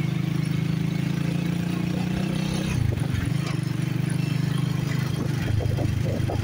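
Engine running steadily, its pitch dipping briefly about three seconds in and shifting again a little past five seconds.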